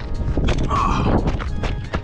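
Footsteps on a dirt and gravel trail, a steady run of crunching steps, over a low rumble of wind on the microphone.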